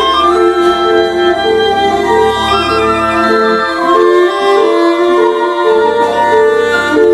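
Instrumental music: a melody of held, pitched notes over a low drone that drops out about halfway through.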